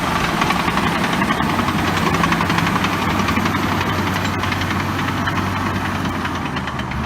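LiuGong B160C crawler bulldozer's diesel engine running steadily with a fast, even pulse.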